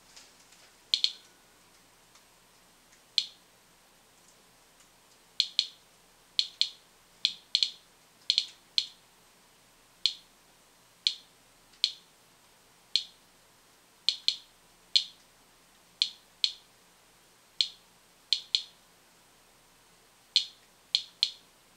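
Inspector Geiger counter chirping once for each detected count, at random intervals about once a second, sometimes in quick pairs or threes, as it measures the kitchen's background radiation.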